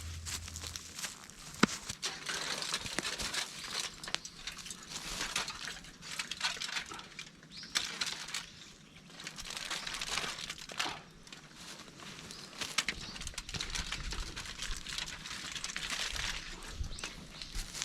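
Continuous rustling and crinkling with many small clicks and an occasional sharper snap, rising and falling in bursts.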